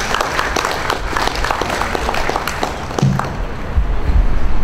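Audience applauding, the claps dense at first and thinning out after about three seconds. A low rumble rises near the end.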